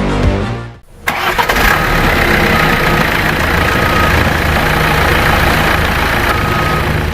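Excavator diesel engine starting about a second in, then running steadily, with a few short faint high tones over it.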